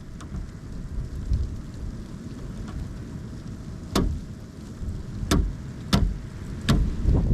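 Pileated woodpecker striking wood with its bill: four sharp, irregularly spaced knocks in the second half, over a steady low rumble of wind on the microphone.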